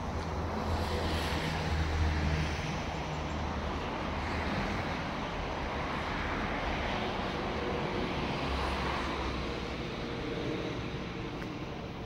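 Motor vehicles passing one after another: a steady rush of traffic noise with a low rumble, swelling and easing a few times.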